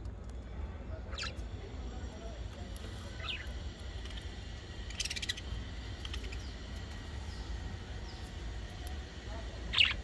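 Budgerigars giving a few short, scattered chirps, the loudest one near the end, over a steady low rumble.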